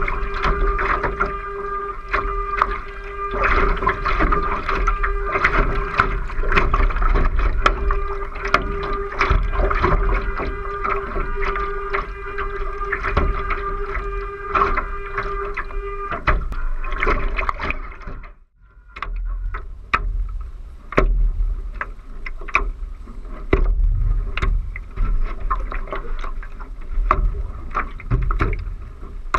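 Water rushing and splashing along the hull of a 2-metre radio-controlled ACC One Design model yacht sailing fast and heeled, with many small knocks of spray hitting the deck and a steady hum over it. About two-thirds of the way through the sound drops out briefly. It returns as rougher water sloshing with wind on the microphone.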